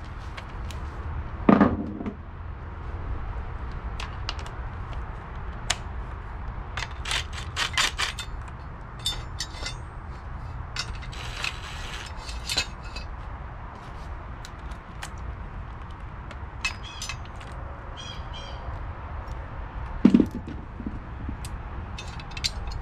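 Metal clinks and knocks of bolts, washers and a steel motor mount bracket being fitted to an LS engine block, with two heavier clanks, one near the start and one near the end. About halfway through, a DeWalt cordless drill briefly runs a bolt in.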